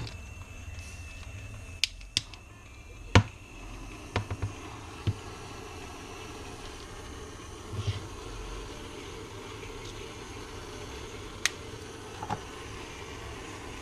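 Scattered sharp clicks and light knocks, about ten in all, over a steady low hum; the loudest comes a little after three seconds in.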